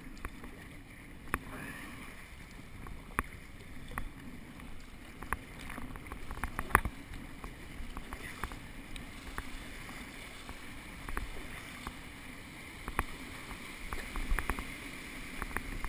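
Double-bladed kayak paddle strokes dipping and splashing in the sea, with water washing along the kayak and wind on the microphone. Scattered sharp knocks throughout.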